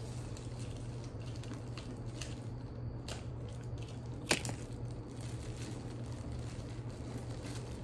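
Faint handling noises of candy and small treat bags being sorted and packed by hand: soft rustles and small clicks, with one sharp tap about four seconds in, over a steady low hum.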